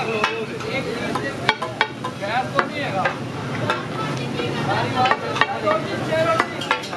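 Chicken pieces sizzling in oil on a large flat tawa griddle while a flat metal spatula scrapes, chops and clacks against the griddle in sharp, irregular strokes.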